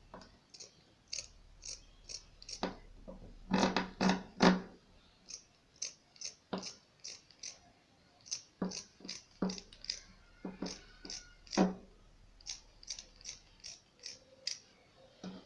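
Scissors cutting through fabric: a run of uneven snips as the blades close, with a few louder ones about four seconds in.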